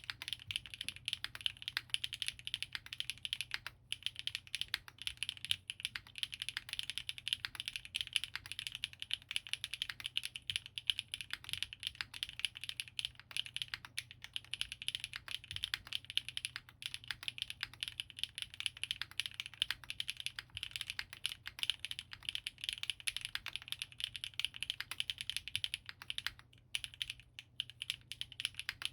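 Fast, continuous typing on a Geonworks Frog TKL 8K mechanical keyboard with lubed Gateron RAW switches, an aluminium plate and GMK Lavender keycaps: a dense run of keystroke clacks, with short breaks about four seconds in and again near the end.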